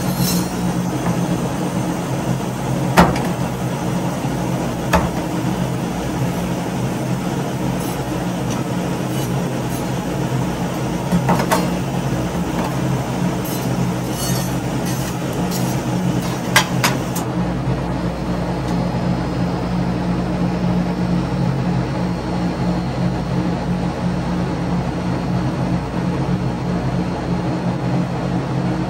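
Rolled-ice-cream making: a steady low machine hum with a few sharp metal clacks of spatulas on the cold plate, spaced several seconds apart.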